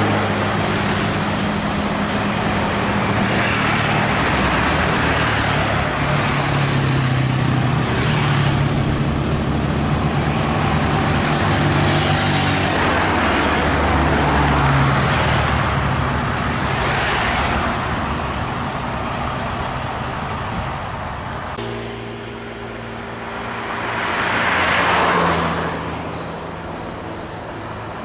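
Diesel bus engines running as buses drive past, with tyre and road noise. Near the end another vehicle swells past and fades away.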